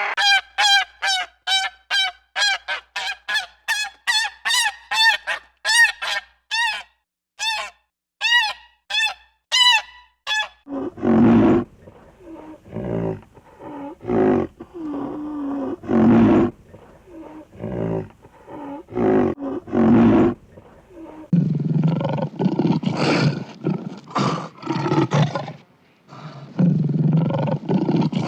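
A bird calling in short repeated honks, about two a second, for roughly the first ten seconds. Then a large animal's deep, rough calls come in bursts, growing denser and louder in the last several seconds.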